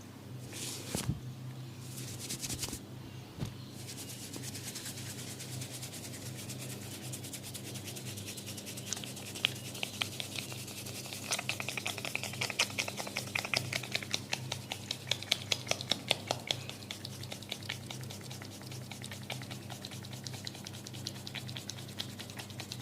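A barber's hands tapping and patting during a head and shoulder massage: a fast, dense run of sharp taps on skin, louder in the middle, over a steady low hum.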